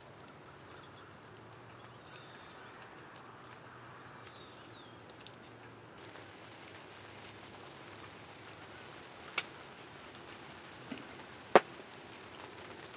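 Quiet outdoor field ambience with a faint high ticking that repeats a few times a second. A few sharp clicks come in the last few seconds, and one near the end is much louder than the rest.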